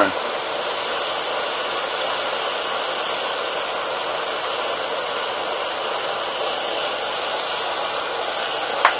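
Propane stove burner running with a steady, even hiss.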